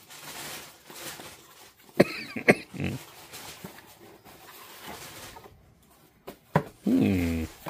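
Cardboard box being opened and handled: the flaps rustle, with two sharp cardboard snaps about two seconds in. Near the end comes a short, low voiced grunt with a falling pitch.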